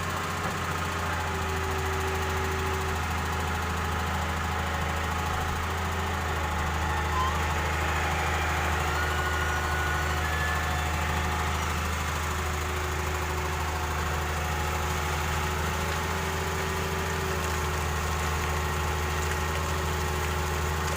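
Excavator's diesel engine running steadily with a deep, even hum while it works loading sand.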